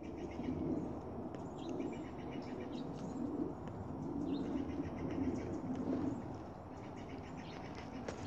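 Outdoor birdsong: small birds chirping now and then over a low, repeated cooing.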